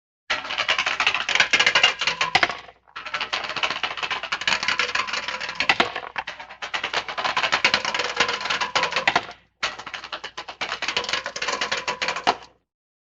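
A sound-effect clip of fast, dense clicking and clattering, with a faint steady tone underneath. It comes in three stretches, each cutting off abruptly.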